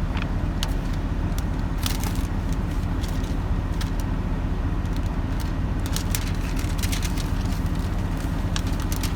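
A vehicle engine idling steadily, with scattered light clicks over it.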